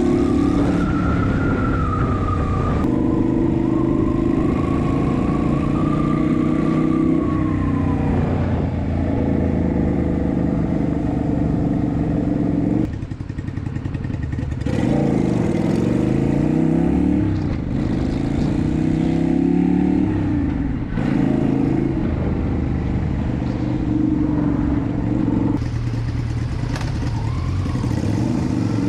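Yamaha Virago 250's air-cooled V-twin, fitted with an aftermarket exhaust, being ridden under acceleration. Its pitch climbs and then drops suddenly several times through the stretch.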